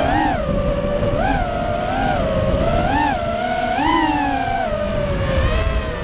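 FPV quadcopter's electric motors whining, the pitch swelling and dipping with the throttle every second or so, over a low rumble of wind.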